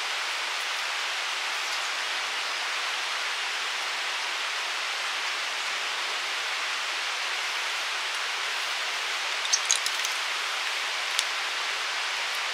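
Steady rush of flowing river water. A cluster of short, sharp clicks about three-quarters of the way through, and one more click about a second later.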